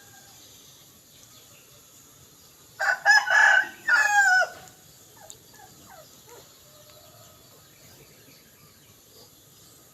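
A rooster crowing once, starting about three seconds in and lasting under two seconds, its pitch falling at the end.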